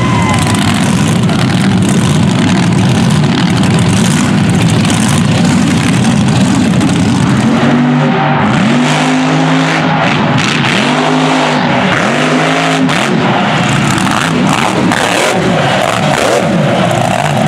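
Mega truck engine at high throttle as the truck races through deep mud, revving up and down several times in quick succession about halfway through, over a steady noise of tyres churning mud.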